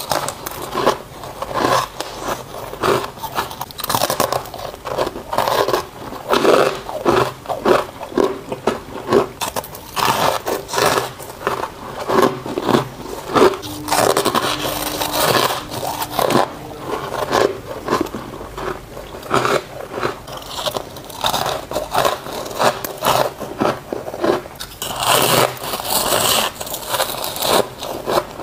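Soft freezer frost crunching as it is bitten off and chewed close to the microphone: a dense, continuous run of crisp crunches, several a second.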